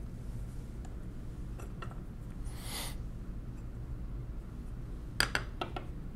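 Small metal mechanical-calculator parts clinking on a desk: a few sharp clicks about five seconds in as a thin metal bar is set down, after a brief rustling scrape about two and a half seconds in. A steady low hum runs underneath.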